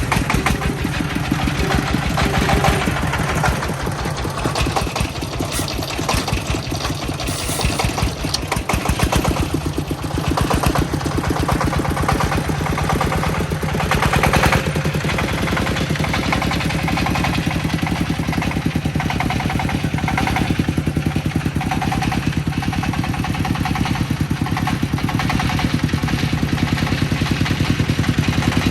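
Công nông farm vehicle's single-cylinder diesel engine running with a rapid, even chugging beat and some clatter.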